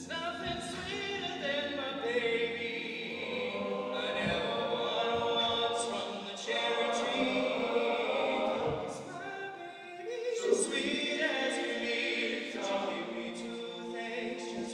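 Men's a cappella ensemble singing in close harmony, a lead voice on a microphone with the group backing him on sustained chords, coming in all together at once.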